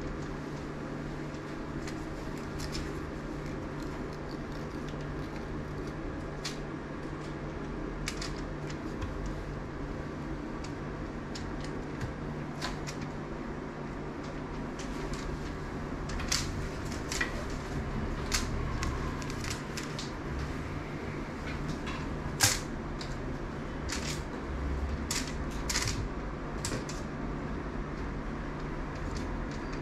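Steady indoor room hum with scattered light clicks and taps, more frequent in the second half, and one sharper tap about two-thirds of the way through.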